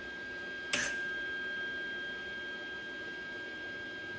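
A faint, steady, high-pitched whine over a low hum, with one sharp click about three-quarters of a second in.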